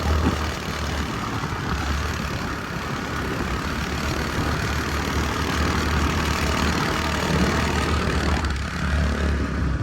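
A motor scooter running, heard as a steady rushing noise with an uneven low rumble underneath.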